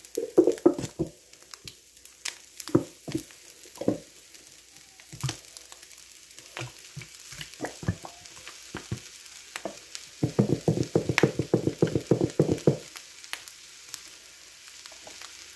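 Ketchup being squeezed out of a plastic bottle into a cast-iron skillet of browned ground beef: scattered wet splats and clicks of the bottle, then a fast run of knocks lasting about two and a half seconds, over a faint sizzle from the pan.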